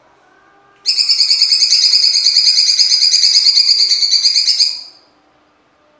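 Blue-winged leafbird (cucak cungkok) giving a harsh, rapid rattling trill of about four seconds. It starts abruptly about a second in and stops just before the end.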